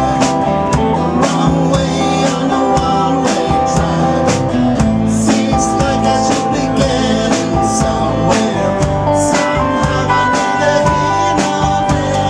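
Live rock band playing: electric bass, electric guitar and acoustic guitar strumming over keyboards, with a steady drum beat.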